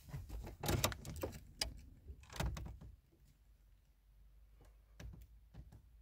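Several sharp knocks and clunks over the first three seconds, then quiet with a couple of faint clicks near the end.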